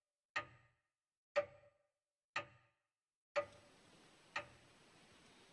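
Clock ticking once a second, five sharp ticks with a short ring after each; a faint steady hiss comes in with the fourth tick.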